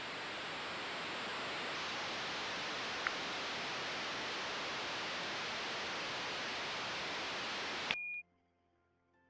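Ollie the Owl sleep aid playing its white noise static track, a steady hiss, with a brief tick about three seconds in. Near the end a single short high beep sounds and the hiss cuts off: the beep signals that the CrySensor is now active.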